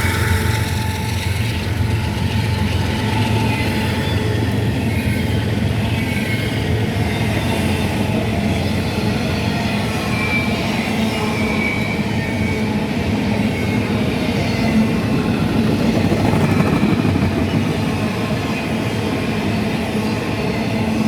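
Cars of a CSX freight train rolling past, a steady rumble of steel wheels on rail, with a brief faint wheel squeal about ten seconds in.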